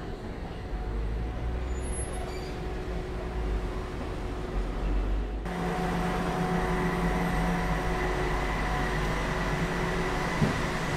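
Battery-powered tram rolling slowly into a station with a low rumble and faint steady tones. About halfway through this gives way to the stopped tram's steady electric hum with a thin high whine, and a single sharp click near the end.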